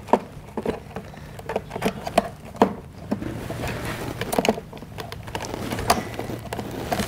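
Irregular plastic clicks and taps as the filter cover of a Lincoln Electric Viking 3250D PAPR blower is handled and pressed into place over the HEPA filter.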